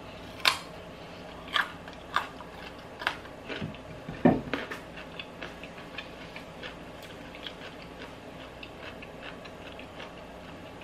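Raw carrot being bitten and chewed close to the microphone: crisp cracks come every second or so at first, then a run of small crunches that thin out to faint ticks. A louder thump comes about four seconds in.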